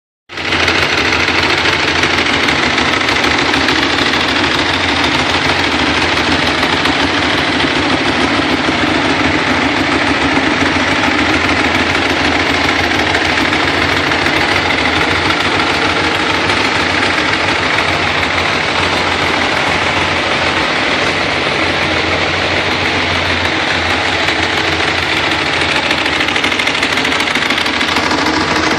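2010 Ducati Streetfighter S's L-twin engine running steadily at constant revs through its stock exhaust.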